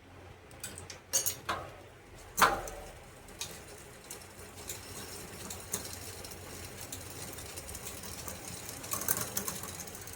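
Mountain bike drivetrain turned by hand: a few sharp metallic clicks and knocks about one and two and a half seconds in, then the chain running over the rear cassette and derailleur with a steady fast rattling tick, and another burst of clicks near the end. The rear derailleur is being adjusted after a bent hanger was straightened, as the chain is not yet shifting down fully.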